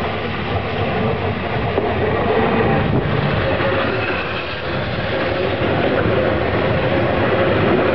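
Stadler Flirt electric multiple unit passing through the station without stopping. Its wheels rumble on the rails and a steady whine sits above the rumble, growing louder as the train comes alongside.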